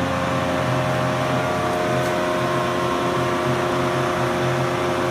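Steady hum of a running motor or machine, holding several constant tones without change.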